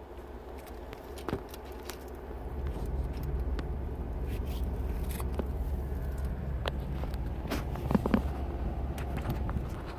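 Low, steady rumble of a vehicle's engine heard inside the cabin, growing louder about two and a half seconds in. Scattered clicks and knocks from the phone being handled, the loudest a pair about eight seconds in.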